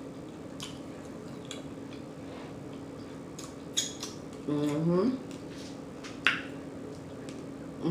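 Mouth smacking and chewing while eating a slider burger: a few separate wet clicks. About halfway through comes one short voiced sound from the eater, rising in pitch, all over a faint steady hum.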